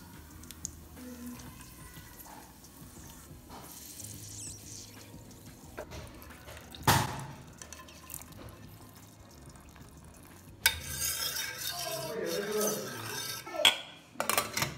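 Cookware sounds: a sharp metal clank about seven seconds in, a few seconds of sizzling as the hot ghee with fried cashews and raisins is tipped into the milk, then sharp metal clicks near the end from the pressure cooker lid.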